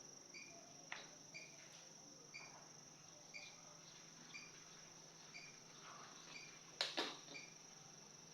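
Crickets: a steady high trill with a short chirp repeating about once a second. A faint click comes about a second in, and two sharp knocks come close together near the end.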